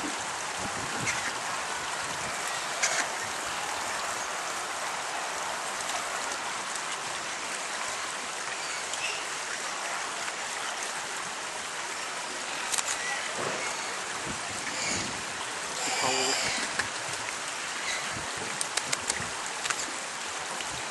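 Steady rushing noise of running water, with faint voices in the background and a few short clicks near the end.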